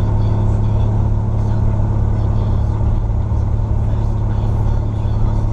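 Car engine and road noise heard from inside the cabin while cruising at a steady speed: an even low drone that does not rise or fall.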